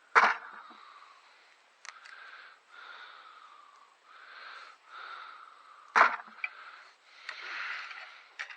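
Hand-digging potatoes: two loud sharp knocks about a second apart from the start and about six seconds in, with lighter knocks and soft rustling of soil in between.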